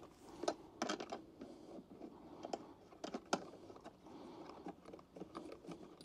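Faint, irregular clicks and taps of a brass hose fitting being handled and fitted onto the inlet port of a Fieldpiece VPX7 vacuum pump.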